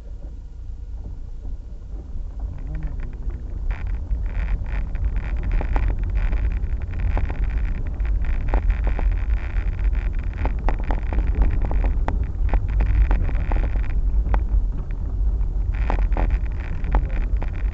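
A vehicle driving on a rough unpaved road: a steady low rumble that builds over the first few seconds, with frequent crunches and knocks from stones under the wheels.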